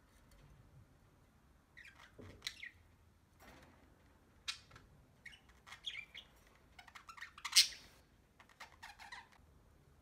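Budgerigar chirping and squawking in short scattered calls, the loudest one about three-quarters of the way through.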